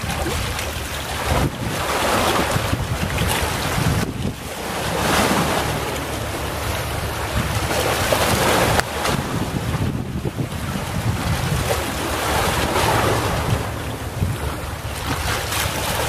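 Small waves of a calm sea washing onto the beach, the surf swelling and falling away every three to four seconds, over a steady low rumble of wind on the microphone.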